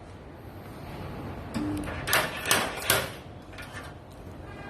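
CRSPOT28 dent-puller spot welder working on sheet metal: a brief low tone, then three short sharp bursts about 0.4 s apart, like the welder firing its pulses.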